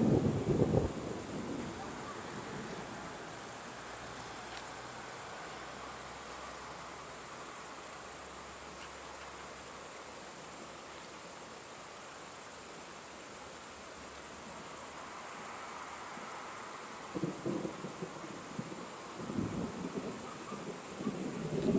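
Crickets shrilling steadily in a continuous high band while thunder rumbles from a passing storm. A rumble fades out in the first second, and from about 17 s in the thunder builds again toward the end.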